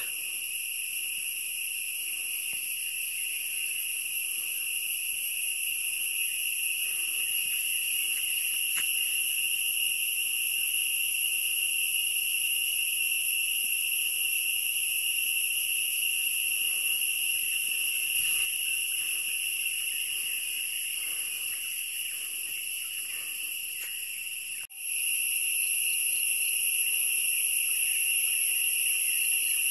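Steady, high-pitched drone of a forest insect chorus, holding constant in pitch, with a brief dropout about 25 seconds in before it comes straight back.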